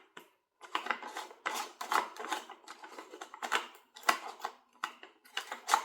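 Irregular clicks, scrapes and rattles of a chainsaw's plastic casing and chain being handled while its side cover is opened to fit the chain.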